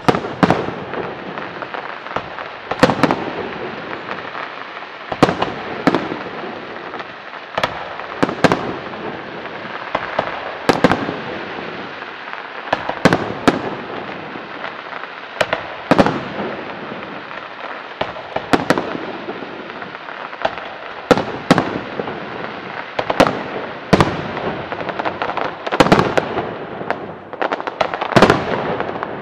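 Aerial firework shells bursting one after another: sharp bangs every second or two, sometimes two close together, over a constant hiss between the bursts.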